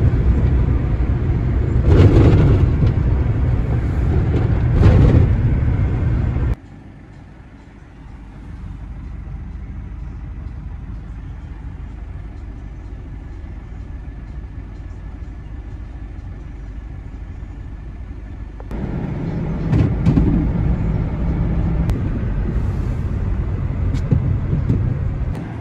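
Cab noise of a GAZelle Next van driving on a snowy road: a steady low engine and tyre rumble with a couple of heavy thumps. About six seconds in it cuts abruptly to a quieter steady hum for about twelve seconds, then the louder driving rumble with more thumps returns.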